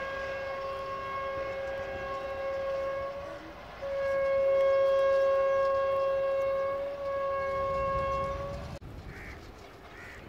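Train locomotive horn sounding two long blasts, the second louder, as a precautionary warning for an unmanned level crossing; it cuts off sharply near the end.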